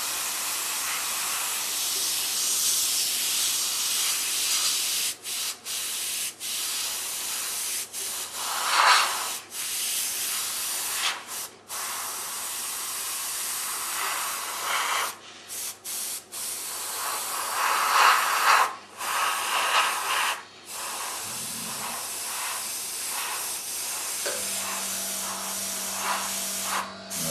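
Airbrush hissing as it sprays paint in short touch-up passes. The air cuts off and restarts many times after the first few seconds, with a couple of louder, fuller bursts.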